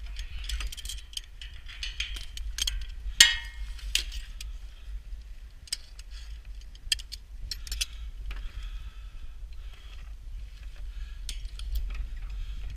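Wind rumbling on the microphone, with scattered metallic clinks and clanks of climbing hardware knocking on the steel tower lattice; the loudest clank, about three seconds in, rings briefly.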